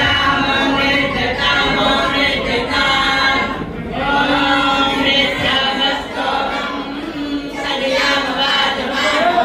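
A group of voices singing a devotional kirtan chant together, with long held notes.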